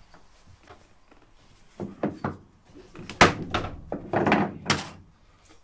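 Wooden knocks and thuds as a mitred floor-locker frame piece is forced down into the floorboards under a person's weight. A few light knocks come first, then louder thuds between about three and five seconds in.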